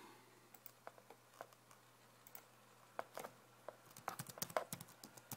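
Faint computer keyboard typing: a few scattered clicks, including a mouse click, then a quicker run of keystrokes from about three seconds in.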